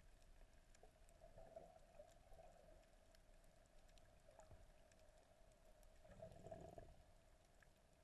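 Near silence: a camera's muffled underwater sound, with a faint steady hum and a soft low rumble about six seconds in.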